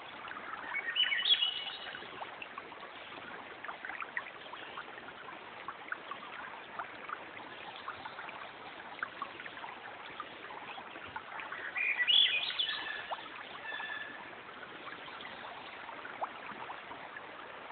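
Steady rush of running water with birds calling over it. There are two clusters of rising chirps, about a second in and again about twelve seconds in.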